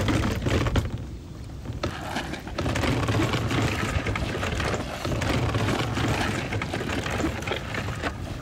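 Wind buffeting the microphone in an uneven rumble, with scuffing steps on gravel.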